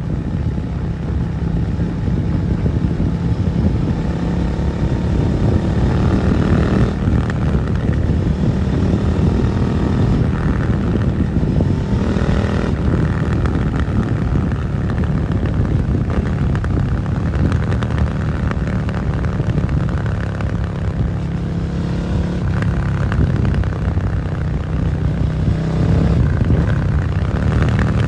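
Suzuki SV650's 645 cc V-twin with an aftermarket Dominator GP exhaust running under way. Its pitch rises and falls with the throttle and gear changes, with climbs about five seconds in and again around twelve seconds.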